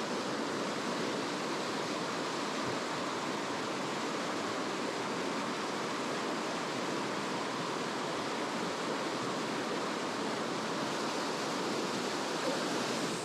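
Steady rushing water of a mountain stream, an even, unbroken roar with no breaks.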